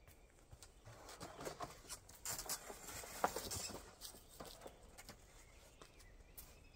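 Pop-up camper's roll-out awning being pulled open by hand: fabric rustling and the aluminium arms clattering lightly, busiest from about one to four seconds in, with a sharp click near three seconds.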